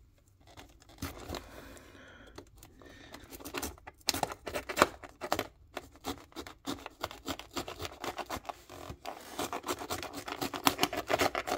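Knife blade cutting and scraping at a cardboard box to open it: a quick run of short scratching strokes, sparse at first and coming thick and fast from about four seconds in.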